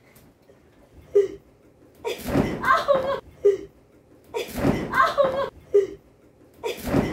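Rhythmic sounds from a person swinging on suspension-trainer straps: a short sound followed by a louder burst with each swing, about every two and a half seconds, three times.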